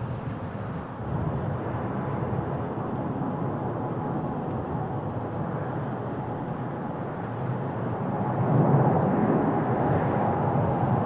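Airbus A321-231 jet airliner on landing approach, its IAE V2500 turbofan engines giving a rumble with a faint whine that grows louder about eight seconds in as the aircraft comes closer.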